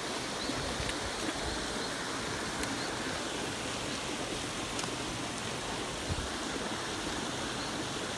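Steady rushing and splashing of water from fountains spraying in a pond.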